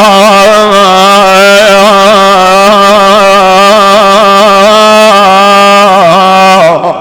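A man's voice holding one long, loud, wavering note on a vowel, an ornamented mournful lament chanted by the reciter of a Shia mourning majlis. It breaks off near the end.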